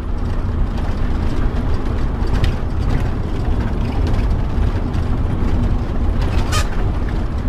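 Inside a motorhome's cab while driving at road speed: a steady low engine and road rumble, with a few short rattles and clicks from the cab, the sharpest a little after six seconds in.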